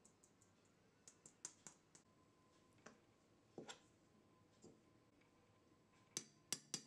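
Scattered light clicks and taps of a metal sieve and spoon against a stainless steel mixing bowl as flour is sifted and stirred, with the sharpest cluster of three clicks near the end.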